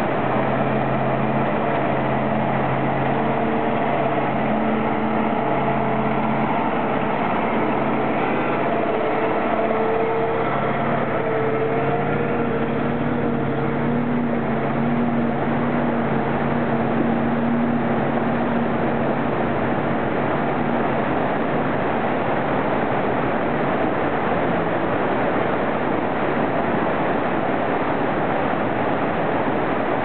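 Kamaz truck diesel engines running at low speed as the trucks wade through a creek, heard over the steady rush of a fast mountain stream over boulders. The engine hum is strongest in the first two-thirds and fades later, leaving mostly the rushing water.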